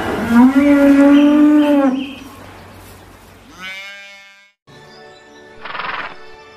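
Cow mooing: one long drawn-out moo of about two seconds, then a shorter moo near the middle. After that comes background music, with a short breathy burst near the end.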